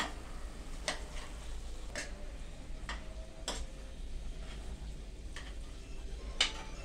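A steel spoon clinking and scraping against a cooking pot as chicken fry is stirred, about one clink a second, some of them ringing briefly.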